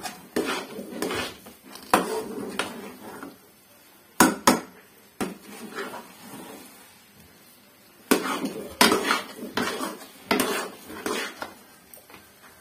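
Steel spoon scraping and knocking against a metal kadai as thick semolina-and-jaggery halwa is stirred continuously so it doesn't catch on the bottom. The stirring comes in runs of strokes, with a couple of sharp clanks about four seconds in and a short lull before it picks up again.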